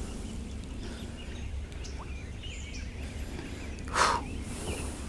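Quiet outdoor ambience with a low wind rumble and a few faint bird chirps, broken by one brief rush of noise about four seconds in.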